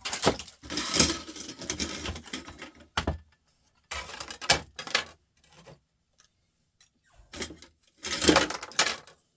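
Small laptop parts clattering and rattling as they are handled and dropped onto scrap piles, in bursts of sharp clicks with a quiet gap before a last loud clatter near the end.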